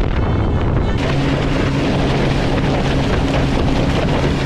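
Outboard-powered motorboat running at speed: a steady engine drone under wind buffeting the microphone and water rushing past the hull. The sound changes abruptly about a second in.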